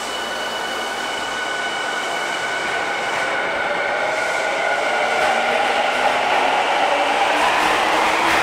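Tokyu 5000-series electric subway train pulling out of the station: its inverter and traction motors whine, several tones gliding upward in pitch as it accelerates, and it grows gradually louder with a few wheel clacks near the end.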